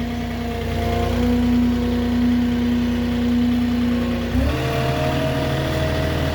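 Moffett truck-mounted forklift's engine running steadily. Its note changes abruptly about four seconds in.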